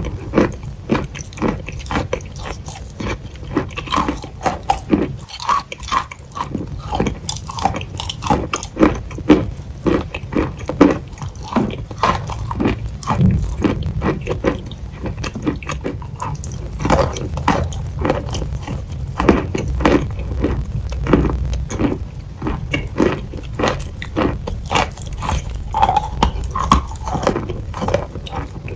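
Close-miked biting and chewing of a dry, crumbly white block: dense, irregular crunches, several a second, with a low rumble underneath.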